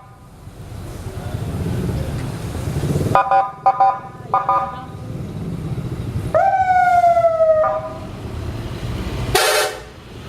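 Scania K410 coach running, with its telolet horn sounding a cluster of short multi-note blasts about three seconds in. Around six seconds in comes a siren whoop that rises sharply and then holds for about a second, and near the end there is a brief burst of hiss.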